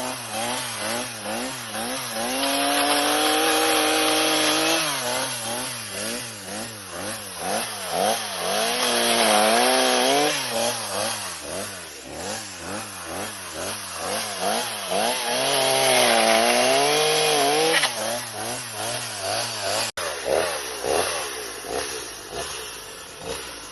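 Chainsaw cutting bamboo: the engine is revved up and down over and over, with longer stretches held at high speed under load. The sound breaks off for an instant about twenty seconds in.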